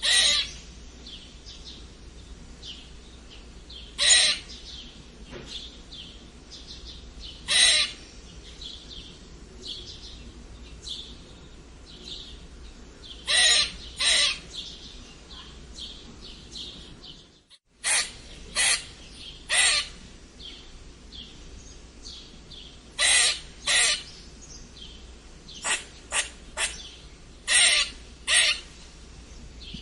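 Squirrel squeaking: about fifteen short, sharp high-pitched calls, alone or in quick pairs every few seconds, over fainter continuous chirping. The sound cuts out for a moment a little past halfway.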